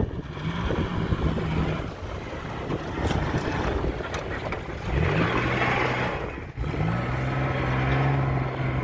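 Vehicle engine pulling away and driving, its note climbing as it accelerates about five seconds in and again near seven seconds, then holding steady, over a constant rough rolling noise.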